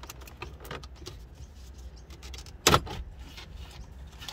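Plastic centre dash fascia of an EK Honda Civic being pulled off: small plastic ticks and creaks, then a sharp snap about two and a half seconds in and another near the end as its retaining clips let go.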